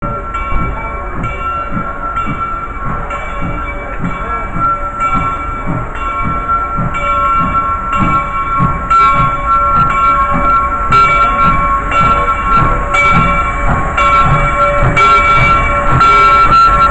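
Steam locomotive No. 425 approaching with its bell ringing steadily, about one stroke a second, over the low beat of its exhaust chuffs, growing louder as it draws near.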